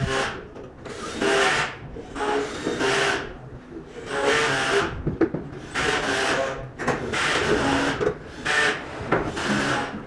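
Screws being turned out of the side of a metal equipment chassis: a series of short scraping, rubbing bursts, each about a second long.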